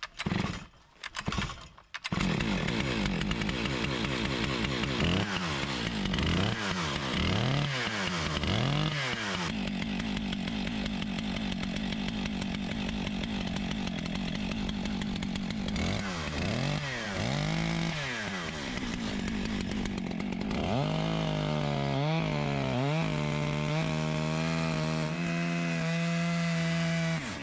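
Stihl MS 661 two-stroke chainsaw on a 36-inch Alaskan chainsaw mill. It starts up about two seconds in and is revved up and down several times. It then runs at high revs as the mill is pushed into the log, and its pitch holds steadier near the end.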